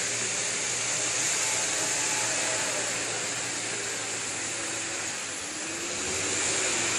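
Stuck pickup truck's engine running hard with its wheels spinning in mud: a steady rushing noise with a strong high hiss. About five seconds in it dips briefly, then comes back up.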